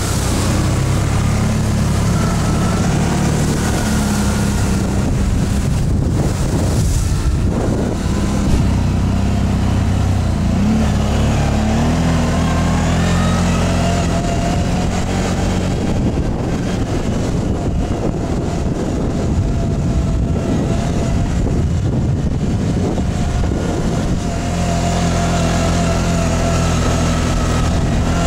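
ATV (quad bike) engine running while riding, its pitch shifting up and down several times with the throttle.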